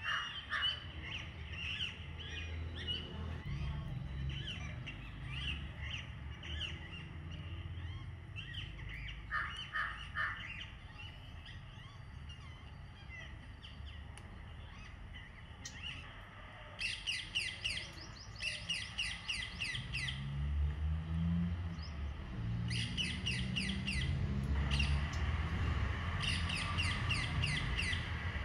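Outdoor birdsong: scattered chirps throughout, with bursts of rapid trilled calls in the second half, over a low steady rumble.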